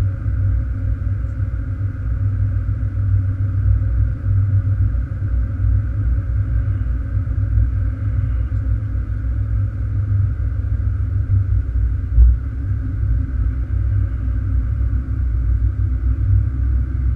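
Steady low rumble of a car driving on the road, engine and tyre noise heard inside the cabin, with one brief thump about twelve seconds in.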